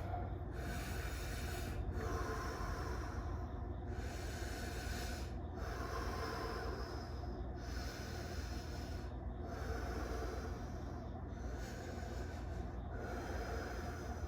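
A man breathing deeply and rhythmically in and out, about one breath every two seconds, over a low steady hum. The breaths are the breathing-up before a breath hold in cold water.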